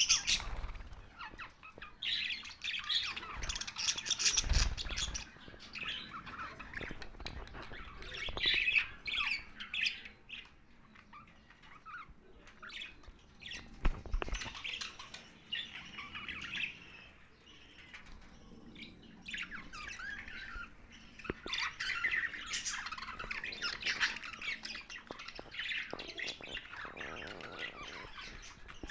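Pet budgerigars chattering and chirping, a flock of warbling and squawking calls in busy bursts with short lulls. A few soft thumps, around four to five seconds in and again near fourteen seconds.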